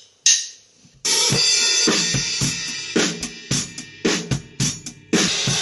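A drum kit playing a pop-ballad groove with snare, bass drum, hi-hat and cymbals, over the song's music. It comes in about a second in, after a single sharp click. The 14-inch Ludwig Breakbeats snare is muffled with a towel to match the song's snare tone.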